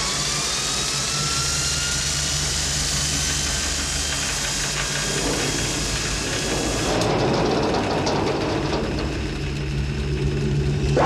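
Belt-driven electric motor rig hooked to a basement furnace, spinning up with a rising whine that levels off about a second in, then running with a steady machine hum and rumble. About seven seconds in, the high hiss drops away and a deeper rumble grows.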